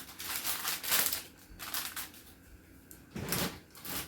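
Plastic food packaging crinkling and rustling as items are handled, with a soft knock about three seconds in.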